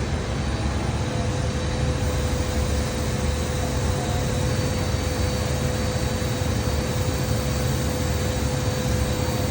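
Spray gun spraying a coat of lacquer, a steady rush of air over a low rumble from its air supply, with a faint steady whine running through it.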